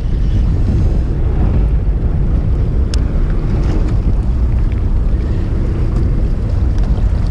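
Wind buffeting the microphone aboard a fishing boat at sea, a steady low rumble, with one sharp click about three seconds in.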